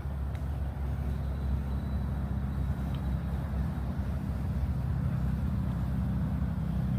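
A steady low rumble of background noise, with a faint thin high tone above it.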